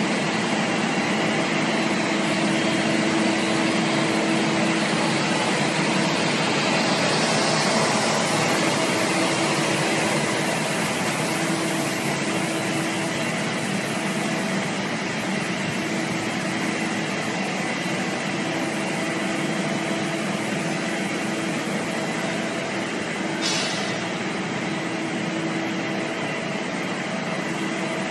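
Polystyrene foam sheet extrusion line running: a steady machine drone with several constant hum tones, and one brief rattle about three-quarters of the way through.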